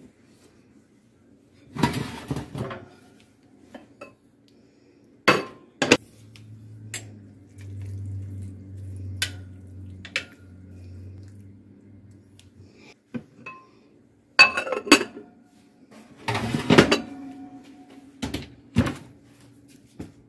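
Metal spoon clinking and scraping in a ceramic casserole dish as baked navy beans are stirred, with scattered sharper clanks of cookware, loudest a few times through, over a faint steady hum.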